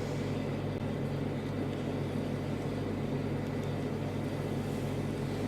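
A steady low hum with a faint hiss, unchanging throughout, with no knocks or taps.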